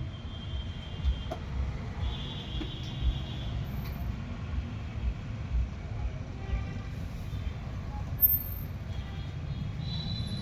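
Street traffic: a steady low engine rumble with short, high horn beeps from passing vehicles, and a few dull thumps.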